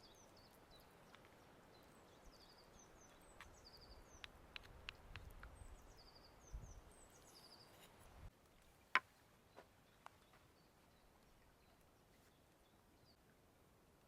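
Songbirds singing faintly in short repeated trills over the soft, steady rush of a flowing river. About eight seconds in, the background drops away and a few sharp clicks sound, one loud click standing out.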